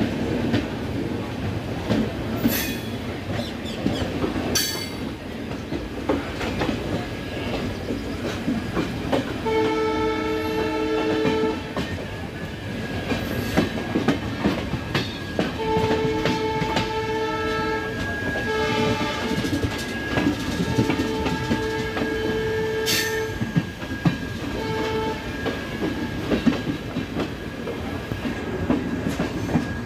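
Two passenger trains running side by side on parallel tracks: steady running rumble and wheels clattering over rail joints, with a few sharp knocks. A locomotive horn starts about ten seconds in with a blast of about two seconds, then sounds again several times in blasts of varying length through the second half.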